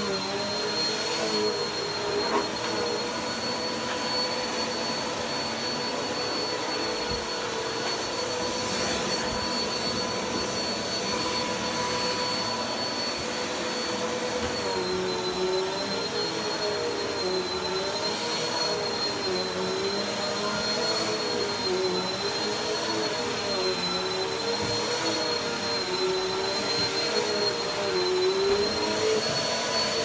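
Bagless upright vacuum cleaner running with a steady motor whine. From about halfway, with the hose wand in use, its pitch wavers up and down.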